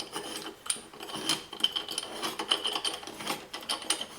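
Half-inch ratchet and socket working the faucet's 1-1/8 inch brass nut: irregular clicks and metal rubbing, with a thin squeak through the middle seconds.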